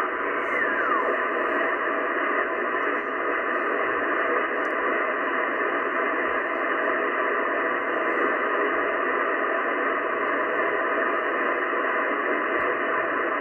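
Yaesu FTdx10 shortwave transceiver's upper-sideband audio while the dial is tuned steadily up through the 5.36–5.43 MHz range: a steady hiss of band noise cut off above about 3 kHz by the sideband filter. About half a second in, a faint tone slides down in pitch as the tuning sweeps past a signal.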